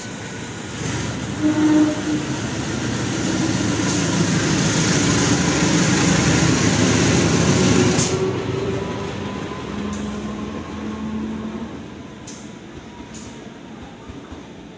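KAI CC 203 diesel-electric locomotive running light past on a shunting move, its engine sound building to the loudest point about eight seconds in and then fading as it moves away. A few sharp clicks come in the second half.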